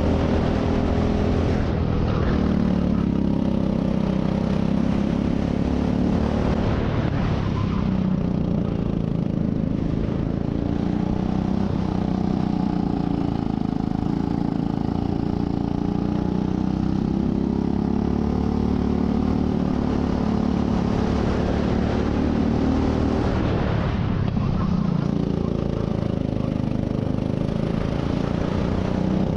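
Rental go-kart engine heard from onboard the kart, running hard and rising and falling in pitch as the throttle opens on the straights and lifts into the corners, several times over.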